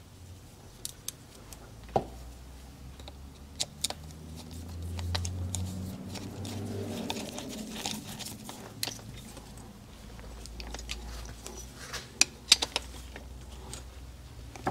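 Scattered small metal clicks and taps as a neutral switch is fitted by hand and its screws are turned with a screwdriver into an aluminium motorcycle crankcase, over a faint low hum.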